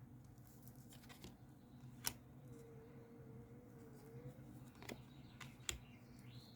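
Near silence broken by a few faint clicks, three of them, the kind made by tarot cards being handled and laid on a table.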